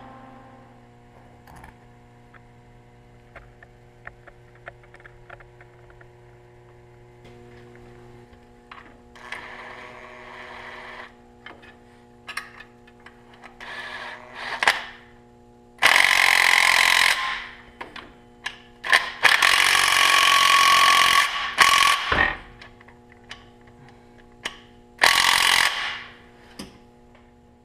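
Cordless drill-driver with a socket extension running the exhaust manifold's bolts, in short runs of a second or two. The three loudest runs come in the second half, with quieter clicks and tool handling before them.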